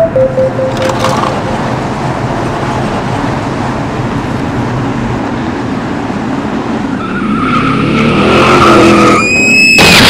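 Steady car road noise, then tires squealing more and more loudly over the last few seconds as the car skids, ending in a sudden loud burst of noise.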